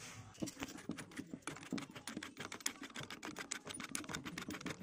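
Rapid, irregular light clicking of metal on metal as an Allen key works inside a keyed drill chuck, with the chuck being handled and turned.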